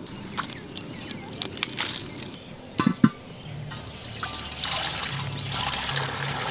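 Water pouring in a steady stream into a large aluminium pot, starting a little past the middle and growing fuller. Before it, light clicks and crackles from a wood fire being fed dry leaves, and two loud knocks just before the pouring starts.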